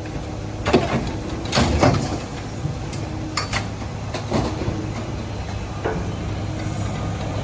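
Scrap metal clanking and scraping as a heavy-duty lifting magnet picks it up out of the load: several sharp, ringing metal clanks over an engine running steadily.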